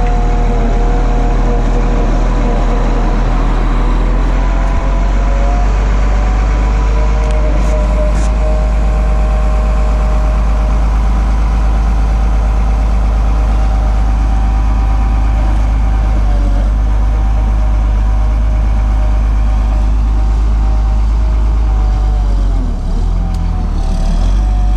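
Diesel engine of a Volvo G710B motor grader running steadily under load while it grades gravel, a deep rumble with a steady whine over it; the engine note dips and wavers briefly near the end.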